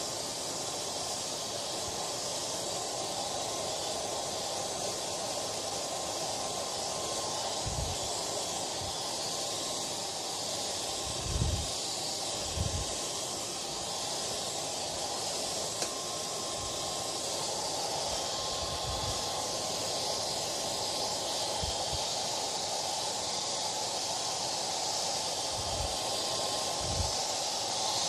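Hair dryer running steadily: an even rush of blown air with a faint steady whine, and a few brief low thuds here and there.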